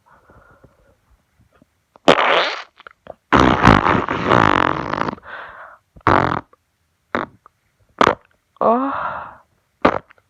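A string of fart noises, about six in all: short blasts and one long one lasting about two seconds.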